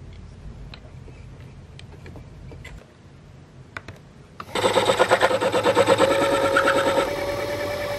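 Small DIY lathe turning brass stock. A faint hum and a few light clicks, then from about halfway the cut starts: a loud, rough, rapidly pulsing cutting noise with a steady whine, which grows smoother and more even near the end.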